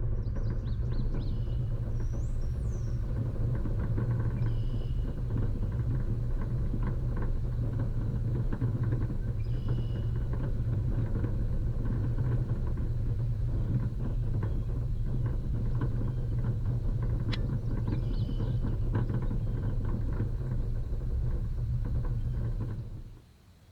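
Offroad vehicle driving a rough dirt track: a steady low engine rumble with many small knocks and rattles over it. It stops abruptly near the end.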